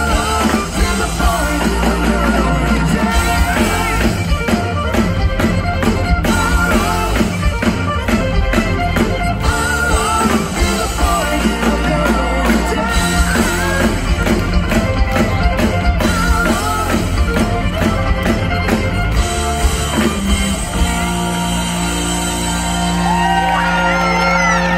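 Live rock band with violin, electric bass, drum kit and keyboards playing loudly through a PA. About 20 seconds in, the drums stop and the band holds a long sustained chord.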